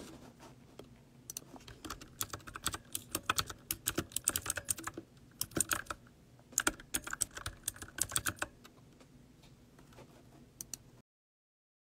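Typing on a computer keyboard: rapid key clicks in bursts for several seconds, thinning to a few taps, then the sound cuts out entirely about a second before the end.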